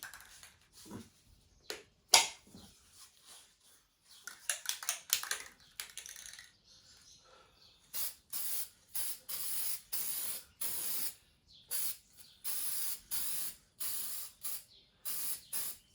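Aerosol spray-paint can giving a series of about a dozen short hissing sprays, from about halfway through, with scattered clicks and rattles before them.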